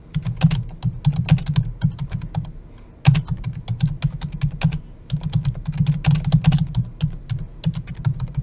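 Typing on a computer keyboard: quick runs of keystrokes, with a brief pause about two seconds in.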